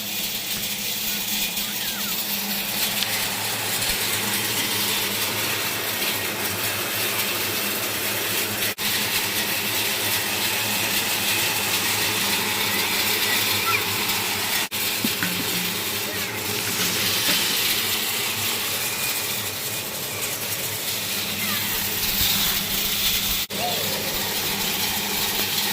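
Rice winnowing machine running steadily: a continuous hiss of fan air and grain pouring through, over a low steady hum.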